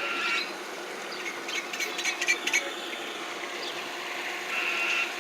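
Birds calling in short repeated bursts over a steady background of water and boat noise, with a few brief clicks in the middle.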